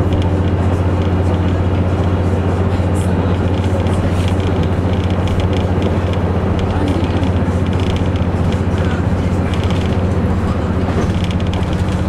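Inside a moving KiHa 121 diesel railcar: a steady low drone from the diesel engine and running gear over rumbling rail noise.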